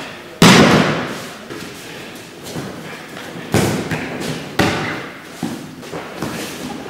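An aikido partner taken in a high breakfall hitting the mat with a loud, echoing thud about half a second in. Two more sharper thuds come a little past halfway as he is taken down to the mat again, with lighter knocks of feet and body on the mat between.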